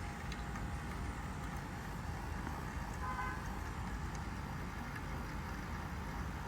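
2025 Carrier Comfort heat pump outdoor unit running through a defrost cycle: a steady hum with a low rumble and a hiss, and a brief higher tone about halfway through.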